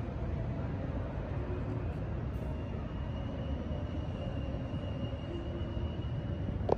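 Steady low rumble of background noise, with a faint thin high tone through the middle and a single sharp click near the end.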